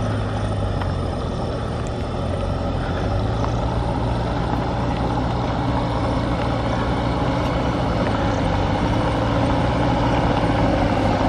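Motor vehicle engine running with a steady low hum as the vehicle slowly approaches, growing gradually louder.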